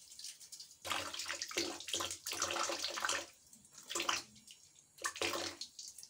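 Water splashing and sloshing in a plastic bucket in three bursts: a long one starting about a second in, then two short ones.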